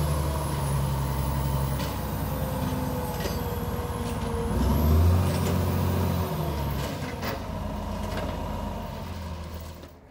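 Semi truck's diesel engine running, revving up about five seconds in and then settling back, with a few faint clanks.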